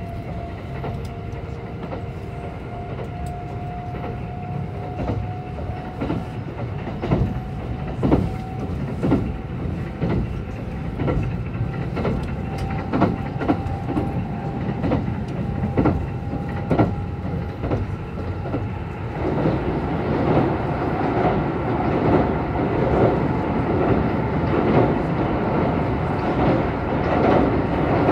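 Kintetsu 22000 series electric train running, heard from inside the car. A motor whine slowly climbs in pitch as the train gathers speed, and the wheels click over rail joints. About 19 seconds in, the whine drops out and a louder, denser rumble takes over as the train runs onto a river bridge.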